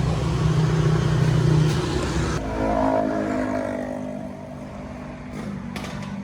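A small engine running steadily, then easing off about two seconds in and slowly growing quieter.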